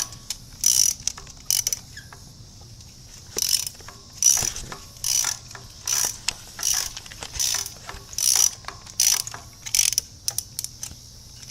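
Socket ratchet wrench clicking in about a dozen short strokes, a little under a second apart with a pause around two to three seconds in, as a spark plug is worked loose.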